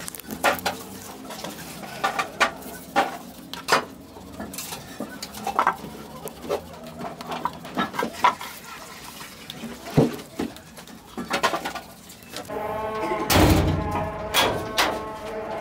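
Irregular metallic clinks and knocks of cast-iron sewing machine heads being handled and set down on the floor. Near the end a louder, continuous sound takes over.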